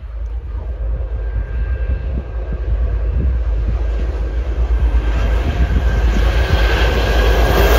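A 'Ludmilla' diesel locomotive (DB class 232 family) approaching at the head of a freight train, its diesel engine running with a deep rumble that grows steadily louder. A thin steady whine joins about two seconds in and strengthens as it nears.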